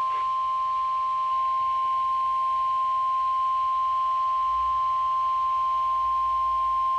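NOAA Weather Radio warning alarm tone: a single steady tone at about 1050 Hz, the attention signal that announces a tornado watch alert.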